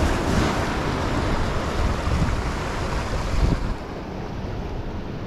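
Ocean surf washing and breaking on jetty rocks, with wind buffeting the microphone. The wash is loudest for the first three and a half seconds, then eases.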